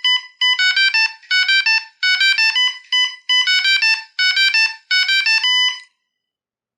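Old Alcatel One Touch Easy mobile-phone ringtone played back from an MP3: a fast electronic beeping melody in short, repeated phrases of quick notes. It stops about six seconds in.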